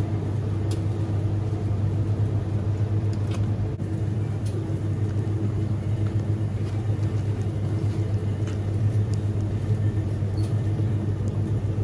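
Steady low electrical hum of a supermarket's refrigerated display cabinets and ventilation, with a few faint clicks of handling.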